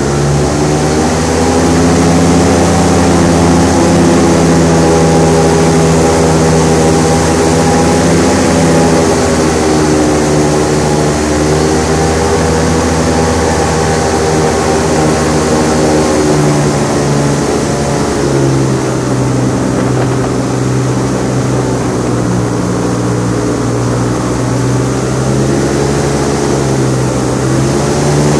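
Airboat's engine and large air propeller running loud and steady under way, the pitch drifting up and down as the throttle is eased off and opened again.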